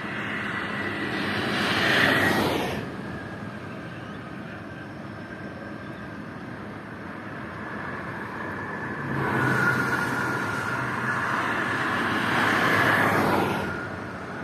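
Motorway traffic passing at speed: a rush of tyre and engine noise swells as a vehicle goes by about two seconds in, then a longer, louder passage of vehicles from about nine to thirteen seconds, with a low engine hum in its first part.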